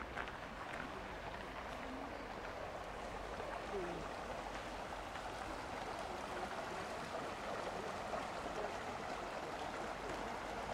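Stream water rushing steadily, swelling slightly louder over the few seconds.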